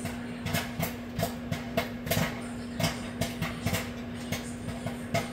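Popcorn kernels popping in a running Whirlpool microwave oven: irregular sharp pops, about three a second, over the microwave's steady hum.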